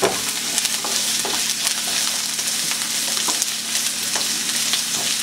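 Chopped onion freshly added to hot oil sizzling in a nonstick frying pan, a steady hiss, with small scrapes and ticks from a plastic slotted spatula stirring it.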